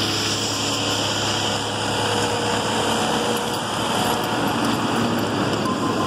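Road-construction vehicles, a line-painting machine and work trucks, running steadily. There is a constant hiss over the low engine hum.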